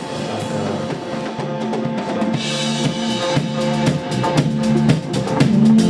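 A band playing an electronic-leaning track with a drum kit beat and a steady bass line; the drumming gets busier and louder as it goes.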